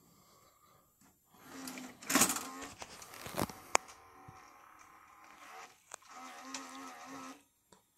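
Small electric motor buzzing, twice: once about two seconds in and again near the end, with a couple of sharp mechanical clicks in between, typical of a VCR's tape-loading mechanism.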